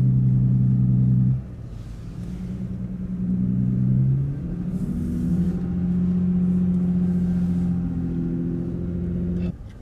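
Car engine and road noise heard from inside the cabin: a steady low drone whose pitch steps up a few times, with sudden drops in loudness about a second and a half in and again near the end.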